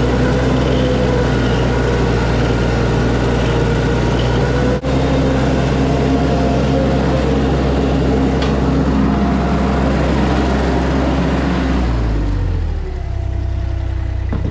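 An engine running steadily, its speed dropping about twelve seconds in and then holding lower.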